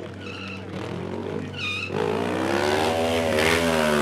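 Stunt motorcycle engine idling, then revved hard from about halfway through, its pitch climbing and then falling back. Two short high squeals come before the revving.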